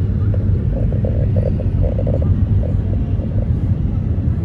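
Steady low road and engine rumble heard inside the cabin of a car driving along a paved road.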